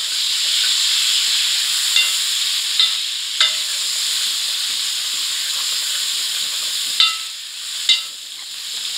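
Chopped tomatoes frying with onions in hot oil in a metal kadai, a steady sizzle, while a spoon is stirred through them and clinks against the pan several times. The sizzle eases off for about a second near the end.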